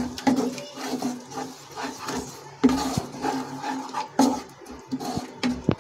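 Wooden spatula stirring and scraping thick tomato-and-curd masala around a nonstick kadhai, in repeated short strokes about every half second.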